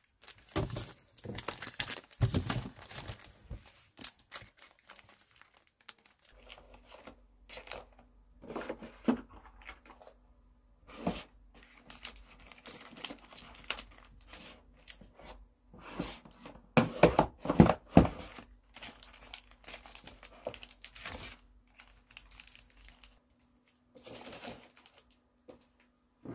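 Clear plastic sleeves on memo-pad packs crinkling and rustling as they are handled and slid into plastic baskets, with irregular light taps and clicks; the loudest rustling comes about two-thirds of the way through.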